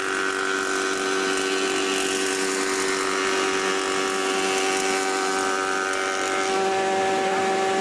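Logosol H410 jointer-planer running with a steady whine while a wooden block is fed across the jointer table over the spinning cutterhead, adding a hissing cutting noise. The cutting noise eases about six and a half seconds in as the cut finishes, leaving the machine running.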